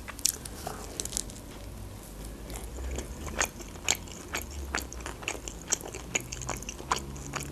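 A person chewing a bite of cheese-topped Turkish flatbread close to the microphone. Small wet mouth clicks and crust crunches come at an irregular pace, roughly two a second.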